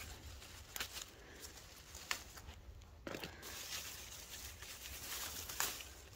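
Leaves and vines of a luffa plant rustling as they are pushed aside and handled during picking, with a few short sharp snaps or clicks.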